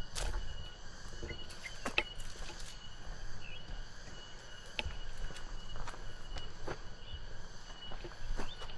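Insects, crickets or similar, keeping up a steady high-pitched drone, with scattered short clicks and knocks over it.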